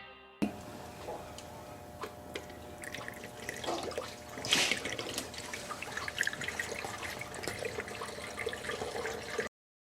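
Water trickling and dripping, with scattered small drips and splashes, stopping abruptly near the end.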